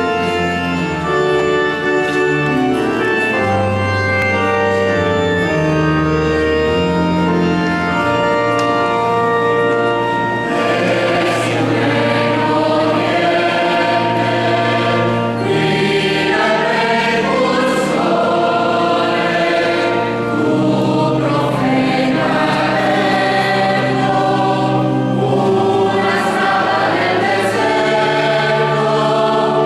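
Organ playing a slow introduction in sustained chords, then about ten seconds in a mixed choir enters singing a hymn over the organ accompaniment.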